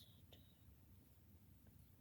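Near silence: room tone with a low hum, and one faint click about a third of a second in.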